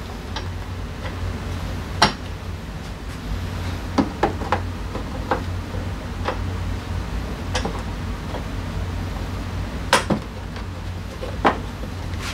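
Hand tools and small metal parts clinking and knocking against each other about nine times at uneven intervals, over a steady low hum.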